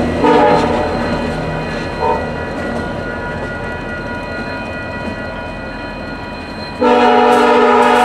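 VIA Rail passenger train's air horn sounding a grade-crossing signal as the train pulls away: the tail of a blast at the start, a short toot about two seconds in, then a long, loud blast from near the end. The train's wheels rumble steadily between the blasts. The signal is being blown for a crossing inside a quiet zone, where the horn is not supposed to sound.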